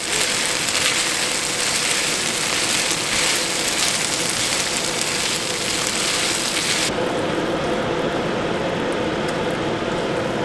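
Frozen mushroom risotto sizzling in a hot oiled frying pan, a steady hiss. About seven seconds in the hiss abruptly loses its high part and goes on softer.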